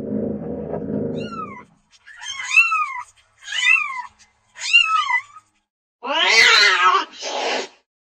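Domestic cat meowing: a run of short rising-and-falling meows, then a louder, harsher drawn-out yowl near the end. A low rumble comes before the meows in the first second and a half.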